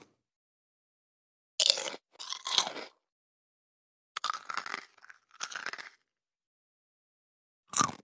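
Human bite sound effects: a person biting into crunchy food. There are two crunches about two seconds in, two more between about four and six seconds, and another just before the end, with dead silence between the clips.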